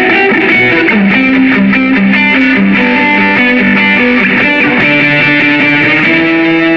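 Electric guitar played through a Line 6 POD HD300 multi-effects pedal's amp simulation: a melodic line of single notes, ending on a long held note.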